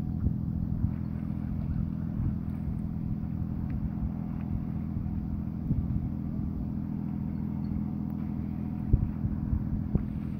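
Super Manta Ray 3900 Series boat's engine running steadily under way, heard as a low drone. A couple of brief knocks come about nine seconds in.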